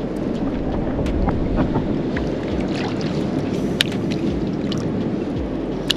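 Steady low rushing of shoreline surf and wind at the tide pools, with scattered small clicks and taps.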